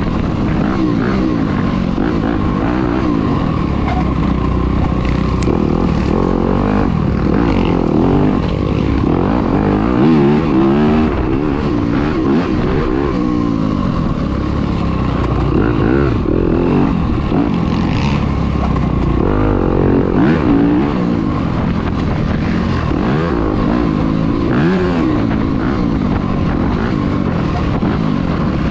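Dirt bike engine ridden hard, its pitch climbing and dropping over and over as the rider twists the throttle and shifts. Heard close up from an onboard camera.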